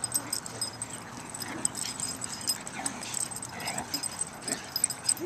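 An Italian greyhound and a terrier play-wrestling, with scuffling, many light clicks and a few faint short dog whines about three seconds in.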